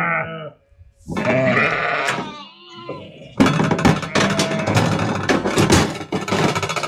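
Merino lambs bleating, two wavering calls in the first couple of seconds, then from about three and a half seconds in a busy run of rattling and knocking as lambs are handled in a metal self-tipping lamb cradle, with more bleats mixed in.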